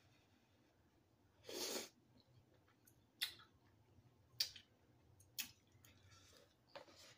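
A short noodle slurp about one and a half seconds in, then three sharp clicks about a second apart as a metal fork knocks against the noodle cup, with a few fainter clicks near the end.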